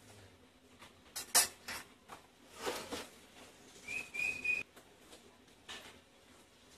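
A wok clanking a few times against a charcoal grill's metal grate, followed by a short hiss. About four seconds in there is a brief high whistle-like note.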